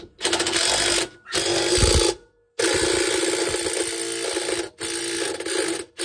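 A power driver with a large socket runs in four trigger bursts, the longest about two seconds, driving home the big central bolt that holds the motor rotor of a Samsung front-load washer.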